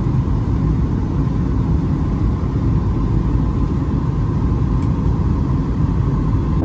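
Cabin noise of a Boeing 737-8 MAX airliner in flight: a steady low rumble and rush of engines and airflow, with a faint steady tone above it.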